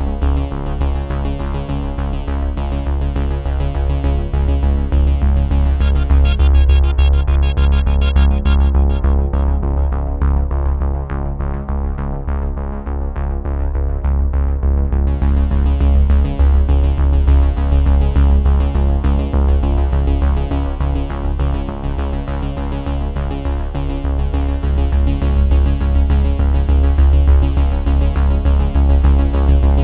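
Electronic background music: synthesizers over a steady pulsing bass, with the high end filtered away for a few seconds midway.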